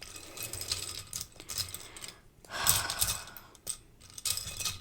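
Plastic Lego bricks clicking and rattling as loose pieces are rummaged through by hand, with a louder shuffling sweep of pieces about two and a half seconds in.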